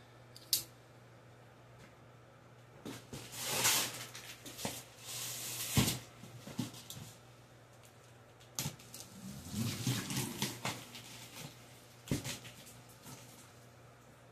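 Large cardboard box being opened by hand: a sharp click, then scraping and tearing of the packaging with a few knocks and cardboard rustling.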